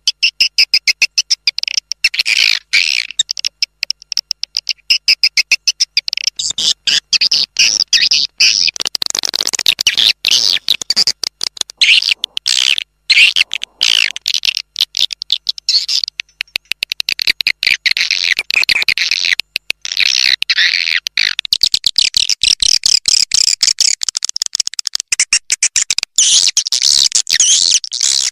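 Swiftlet lure call: rapid, overlapping trains of high chirping twitters from many swiftlets, the kind of recording played to draw swiftlets in to roost. The chirping grows denser about six seconds in and pauses briefly now and then.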